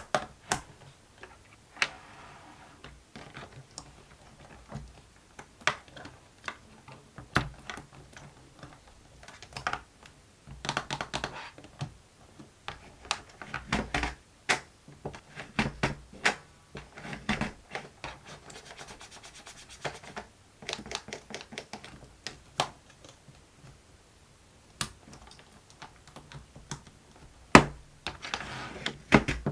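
Plastic clicking and tapping from a fidget board toy being handled: irregular sharp clicks, some in quick runs, with a few short rubbing or rattling stretches.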